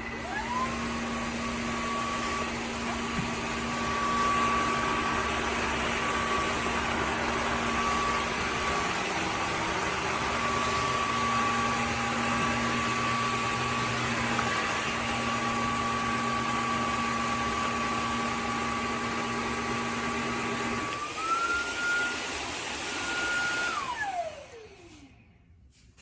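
Dreame G10 Combo cordless wet-dry vacuum cleaner switching on with a rising whine and running steadily over an airflow rush. About 21 seconds in it steps up to a higher pitch, and near the end it switches off and the whine falls away as the motor winds down.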